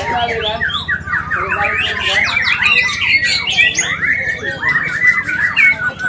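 Many caged songbirds singing at once: a dense tangle of quick chirps, trills and whistles over a steady low hum.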